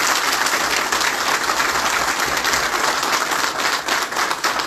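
Audience applauding: many people clapping at once in a steady, dense patter.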